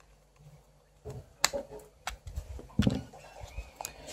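Sharp clicks and light knocks from a small plastic battery alarm clock and screwdriver being handled: about four clicks roughly a second apart, starting about a second in, the loudest one a dull knock.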